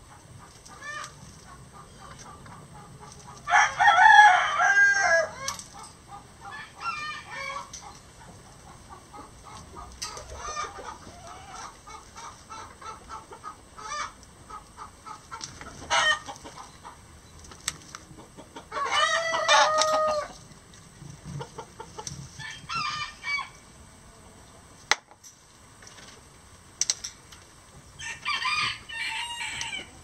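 Several roosters crowing in turn: two loud, close crows, one about four seconds in and one near the middle, with fainter, more distant crows and short calls between them.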